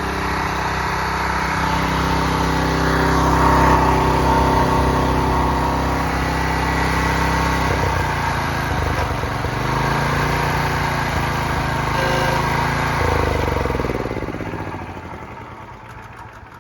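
Small engine of an engine-driven high-pressure washer running steadily, its pitch shifting after about eight seconds, then fading away near the end.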